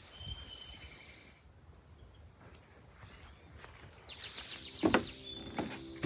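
Quiet outdoor ambience with small birds chirping now and then. About five seconds in there is a sharp clink.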